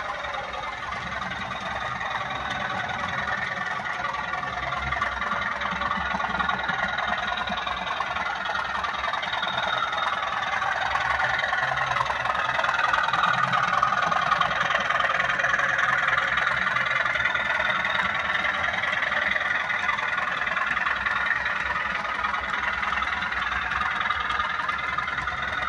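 OO gauge model trains running over a layout bridge: steady motor and wheel-on-track running noise. It grows louder about halfway through as a Bachmann class 37 diesel with a rake of PCA cement wagons passes close by.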